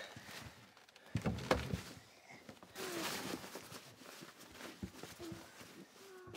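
Quiet rummaging: soft knocks and rustling from searching through coat pockets and wellington boots, with a few dull thuds about a second in.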